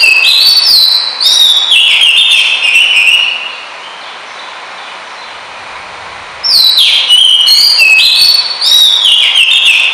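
Oriental magpie-robin (kacer) singing loud, fast runs of clear whistled notes that slide down and jump between pitches. The song breaks off after about three seconds, leaving only a steady hiss, and starts again about three seconds later.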